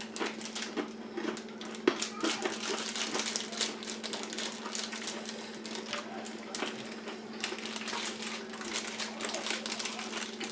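Two people chewing crunchy peanut brittle: a lot of chewing, with irregular crisp crunches and clicks.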